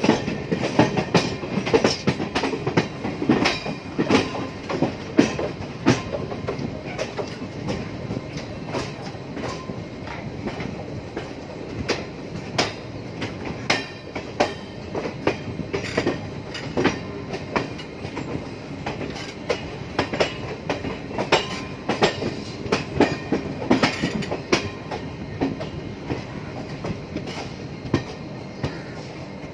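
Passenger train coach running on the track, heard from aboard: a steady rumble with an irregular clatter of sharp clicks as the wheels cross rail joints and points. The clicks grow sparser and a little quieter toward the end.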